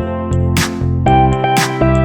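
Background music: electronic track with a steady beat and sustained pitched notes.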